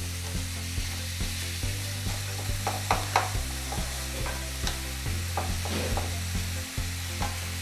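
Chopped onion and tomato sizzling in hot oil in a non-stick pan while a wooden spatula stirs and scrapes them, with frequent small knocks and scrapes of the spatula against the pan.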